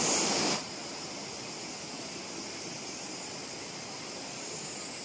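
Steady outdoor rushing noise with a high, even insect drone over it; the rush is louder for the first half second.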